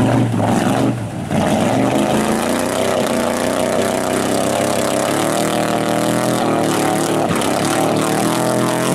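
Ford F-150 mud truck's engine running hard under heavy load as the truck pushes through deep mud water. The sound dips briefly about a second in, then holds steady at high revs.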